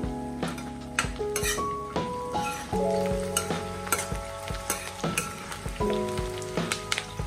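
Sliced onions sizzling in hot oil in a stainless steel kadai, stirred with a steel ladle that clicks and scrapes against the pan many times. Background music plays along with it.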